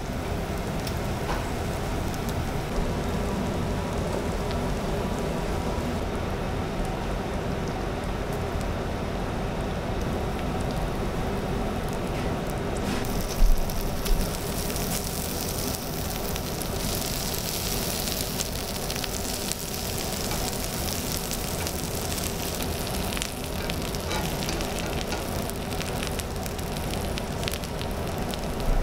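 Pork belly and aged kimchi sizzling on a hot griddle plate, a steady frying crackle. About halfway through, the sizzle turns brighter and hissier, with two sharp knocks at about the same time.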